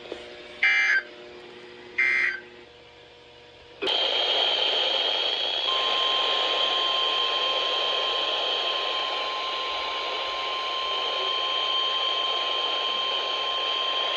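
The last two EAS end-of-message data bursts, short harsh buzzes a little over a second apart. About four seconds in there is a click, then a hiss of radio static, and about two seconds later NOAA Weather Radio's steady 1050 Hz warning alarm tone comes in over the static and holds.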